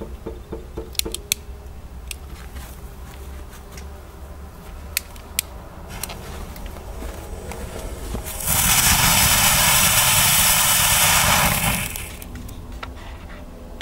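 An old FKW PotzBlitz Vulkan firework fountain: a few sharp clicks, then about eight seconds in a loud, steady rushing hiss of spraying sparks. The hiss lasts about three seconds and drops off quickly.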